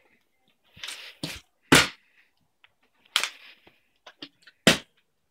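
Partly filled plastic water bottle being flipped and landing on a hardwood floor: a few sharp knocks, irregularly spaced, with faint taps of handling in between.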